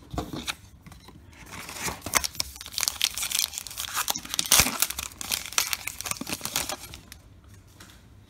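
A 2021 Topps Allen & Ginter baseball card pack's wrapper being torn open and crinkled by hand: a dense run of crackling tears and crinkles for about five seconds that dies down near the end.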